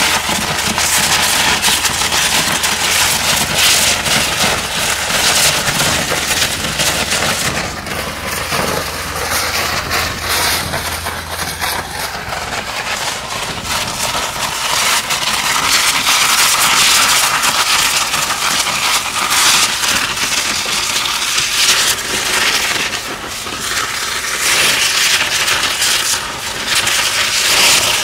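Ultra-high-pressure water jet of an Aquajet Aquacutter 710V hydrodemolition robot blasting concrete: a loud, dense hiss full of rapid crackling as the jet breaks up the concrete. A low hum runs under it for about the first twelve seconds.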